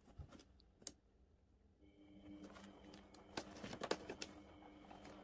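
Near silence: quiet room tone with a faint steady hum that starts about two seconds in, and a short cluster of soft clicks and rustles just before the four-second mark.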